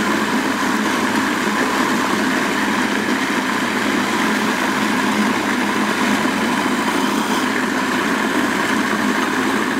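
Food processor motor running steadily, its blade pureeing softened dried chilies in their cooking liquid into a chili sauce.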